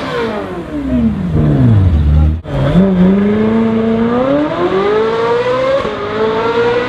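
Ferrari 458 Speciale's V8 through an aftermarket Fi exhaust: the revs fall steeply away after a blip, and the sound breaks off suddenly. The engine then accelerates hard, its pitch climbing steadily for several seconds, with a brief dip about six seconds in.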